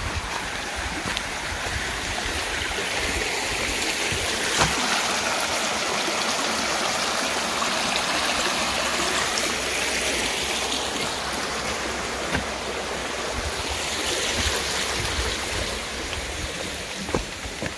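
Shallow rocky woodland creek running over stones, a steady rush of water that is louder in the middle. A few footsteps on the dirt trail near the end.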